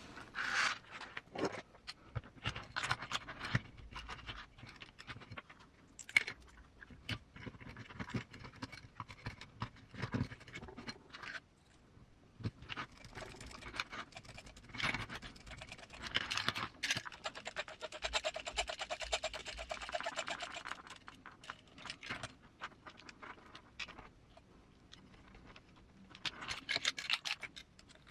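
Hands assembling small RC crawler transmission parts on a workbench: scattered clicks and scrapes of screws, tools and plastic or carbon parts. About two thirds of the way in, a small cordless screwdriver whirs for roughly three seconds, driving an M3 screw.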